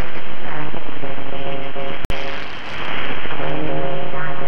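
HF radio reception on a FLEX-1500 software-defined transceiver: a weird, song-like signal of several steady tones that jump to new pitches every half second or so over a bed of static hiss, which the uploader takes for a transmission with sub-par filtering. A brief dropout about two seconds in.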